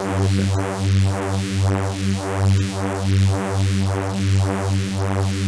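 Phase Plant software synthesizer playing one held low neuro bass note built from sawtooth oscillators. Its tone sweeps up and down in a steady phasing movement about once every 0.7 seconds, driven by LFOs on the filters and the unison stereo spread.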